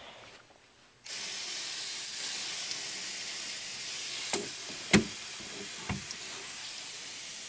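Hand-held water sprayer misting a snake enclosure: a steady hiss of spray starts about a second in and keeps going, with a few short knocks against the cage, the loudest about two-thirds of the way through.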